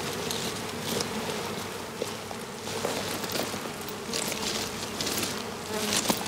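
Honeybees buzzing in a steady, droning hum, with a few short rustles now and then.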